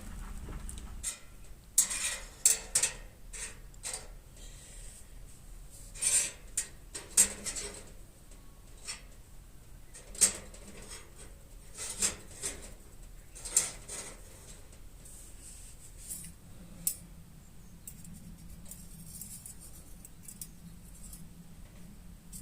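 Irregular light metallic clinks and knocks as thin sheet-metal pieces of a homemade senbei-tin fire pit are handled. They come thickest in the first half and thin out later.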